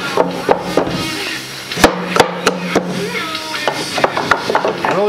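Firework mortar tubes knocking against each other and the wooden rack as they are pushed down and settled into place: irregular sharp knocks, the loudest about two seconds in, over background music.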